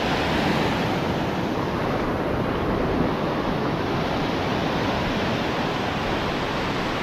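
Small waves breaking and washing up over the shallows of a sandy beach: a steady, unbroken rush of surf.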